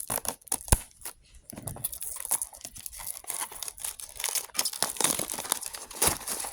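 Packaging of a card-game starter box being handled, torn and crinkled, with a sharp knock under a second in, then steady dense crinkling as the wrapping is pulled off.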